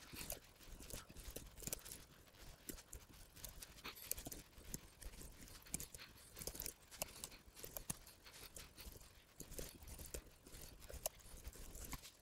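Computer keyboard being typed on: faint, irregular key clicks, several a second.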